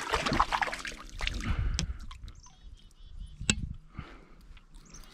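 A small hooked brook trout thrashing and splashing at the surface of shallow brook water for the first couple of seconds as it is reeled in, then a single sharp click about three and a half seconds in.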